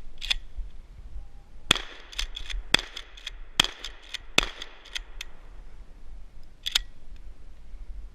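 A run of about a dozen sharp metallic clicks and clacks from a shotgun being handled, coming irregularly and bunched in the middle, with one more near the end.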